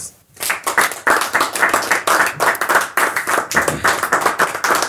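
A small audience clapping, the separate claps still distinct, starting about half a second in.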